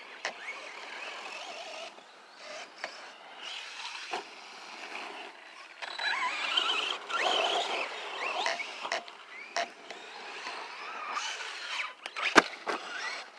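Arrma Granite RC monster truck driving on dirt: its electric motor whines, rising and falling in pitch with the throttle, over the noise of the tyres on loose ground. A single sharp knock near the end.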